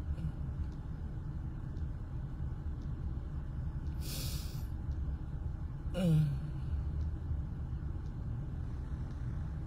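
A man weeping: a sharp intake of breath about four seconds in and a short moan falling in pitch about two seconds later, over the steady low rumble of a car with its engine running.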